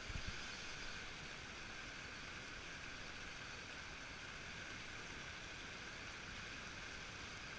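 Fast river current rushing over rocks, a steady, even wash of water noise. A brief low bump sounds right at the start.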